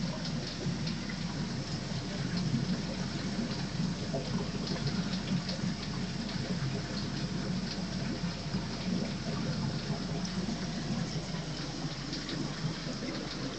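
Steady rush of water circulating in an aquarium, with scattered faint ticks.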